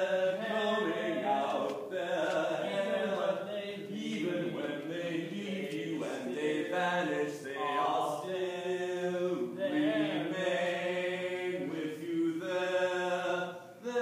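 Two men singing a duet from a stage musical in long held notes that rise and fall, with a steady low accompaniment underneath.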